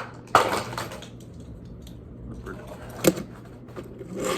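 Small plastic toy playset pieces and packaging being handled: a short rustling burst about half a second in and a single sharp click about three seconds in, over a steady low hum.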